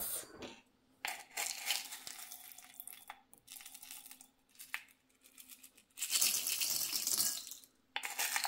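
A plastic measuring spoon scooping dehydrated peas out of a glass jar, and the dried peas pouring onto dry pasta shells in a bowl: a dry, hissing rattle heard in two stretches, about a second in and again about six seconds in.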